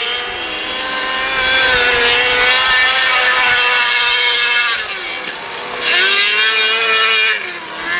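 600cc micro sprint cars running on the dirt oval, their high-revving motorcycle engines passing in turn: one long pass over the first five seconds, a shorter one after a brief dip, and another starting near the end, the pitch falling as each car goes by.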